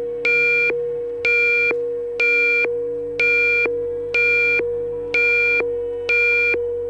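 Electronic emergency alert alarm: a steady mid-pitched tone with a brighter beep sounding over it about once a second.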